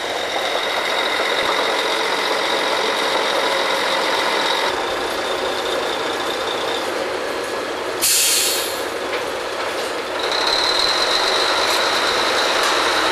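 Drilling rig machinery running with a steady whine that shifts pitch about five seconds in and gets louder about ten seconds in. A short, loud hiss about eight seconds in.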